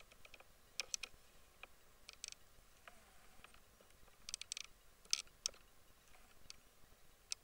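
Faint, irregular clicks and taps of the Medion Life P47011 camcorder being handled as it pans and zooms, picked up by its own microphone over a low hiss.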